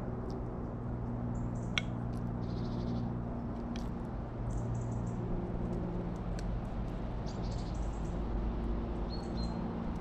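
Carrion crow feeding from a dish: scattered sharp beak taps and clicks as it pecks at the food. Short high chirps of small birds are heard now and then, over a steady low hum.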